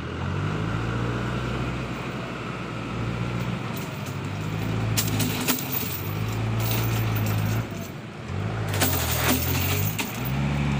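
Truck's diesel engine running, its pitch rising near the start and dipping then rising again around nine seconds in. Sharp metallic clanks come about four to five seconds in and again near nine seconds.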